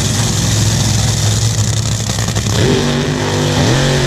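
Top Fuel dragster's supercharged nitromethane V8 running loud and steady, then rising in pitch twice over the last second and a half as the car goes into its burnout.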